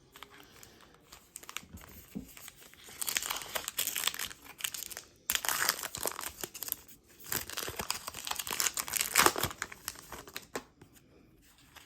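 A trading card pack's wrapper being torn open and crinkled, in three spells of crackling that start about three seconds in and stop near the end.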